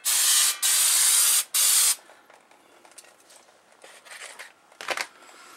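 Aerosol brake cleaner sprayed onto a new brake rotor in three hissing bursts over about two seconds, cleaning off grease. Then a few faint knocks near the end.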